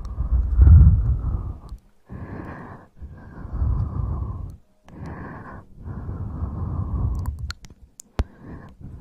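Slow breaths blown straight onto a close microphone, about six in a row. Long, heavy, rumbling exhales alternate with shorter, lighter airy breaths, with brief pauses between them.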